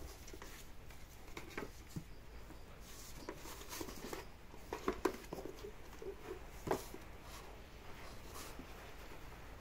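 An empty cardboard sweets box scratching, rustling and scraping across a concrete floor as a cat wriggles with its head inside it. These are faint, irregular scrapes and ticks, with a few light knocks, the sharpest about two-thirds of the way through.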